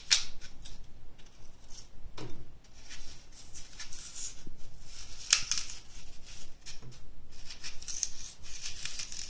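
Small kitchen knife cutting and scraping inside a firm green apple to hollow out the core: irregular crisp scrapes and crunches, the sharpest near the start and about five seconds in.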